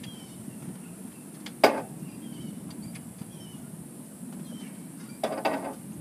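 Knocks from hands and tools working in the engine bay of a 1971 VW bus: one sharp knock about a second and a half in, then a quick cluster of two or three knocks near the end.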